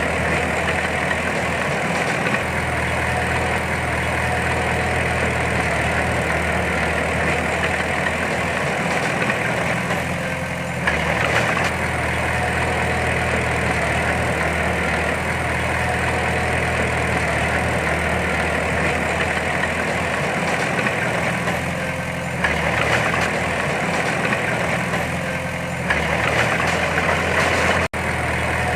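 Heavy diesel engine of earthmoving machinery running steadily, with its note and load shifting a few times (about 11 seconds in, and again later on). The sound drops out briefly near the end.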